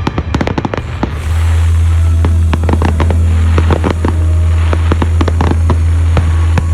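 Fireworks going off in quick succession: many sharp bangs and crackles, with a heavy low rumble that swells about a second in and carries on underneath.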